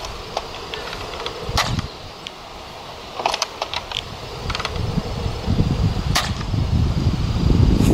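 Modified Nerf Hammershot, fitted with a 5 kg spring plus its stock spring, firing foam darts: three sharp spring-plunger snaps a couple of seconds apart, with smaller clicks from the hammer being cocked between shots. Wind rumbles on the microphone near the end.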